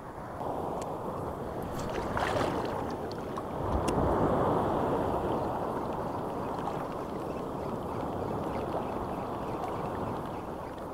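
Sea water sloshing and lapping at the shoreline, a steady wash that swells about two seconds in and again around four seconds in.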